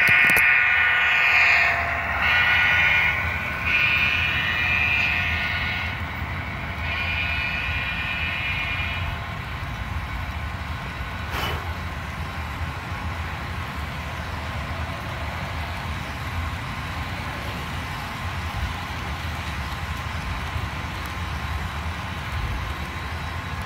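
Sound-equipped model diesel locomotives blowing their horn in several blasts over the first nine seconds or so. After that the model train runs with a steady low rumble as the box cars roll past on the track, and there is one sharp click near the middle.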